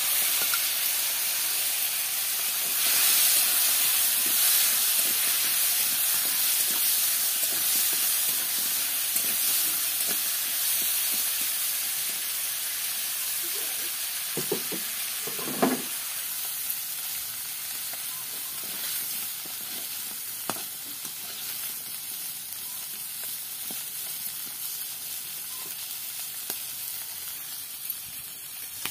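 Marinated crab pieces frying in hot oil in a kadai: a steady sizzle, loudest at the start just after they go into the oil and slowly dying down. A metal spatula stirs and knocks against the pan a few times around the middle.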